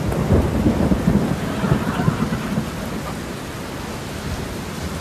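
Thunderstorm sound effect: thunder rumbles over steady rain for the first two and a half seconds, then fades to a steady rain hiss.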